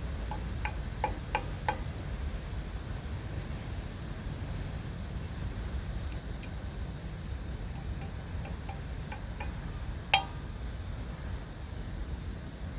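Scattered light clicks and clinks of small hard objects being handled, in small groups, with one louder clink about ten seconds in, over a steady low rumble.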